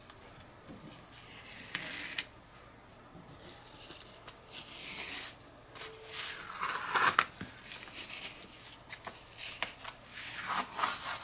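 Cut fabric appliqué pieces being peeled off a sticky cutting mat and handled. There are several short, soft rasping bursts, with small taps and clicks near the end.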